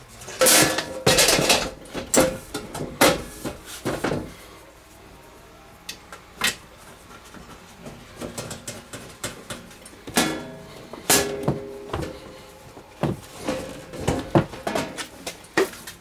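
Sheet-metal cover of an electrical breaker panel being fitted back into place: a run of metallic clanks and knocks with short ringing, in two bursts, over the first few seconds and again from about ten seconds in.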